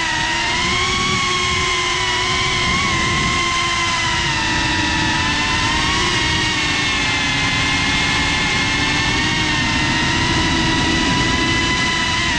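GEPRC CineLog35 cinewhoop FPV drone's brushless motors and ducted propellers whining steadily in flight, the pitch dipping and rising slightly with throttle, over a low rushing noise on the onboard GoPro's microphone.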